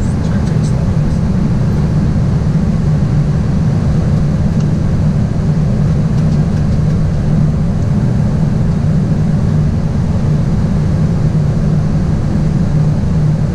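Steady low drone inside an airliner's cockpit on final approach: engine and airflow noise with a constant hum and no change in pitch or level.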